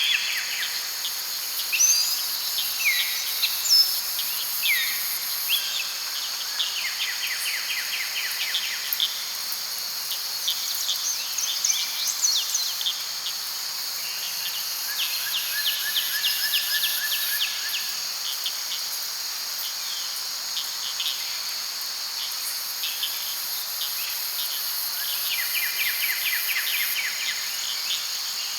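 Daytime forest ambience in late summer: a continuous high-pitched drone of insects, with birds calling over it throughout in short falling whistles and quick trills.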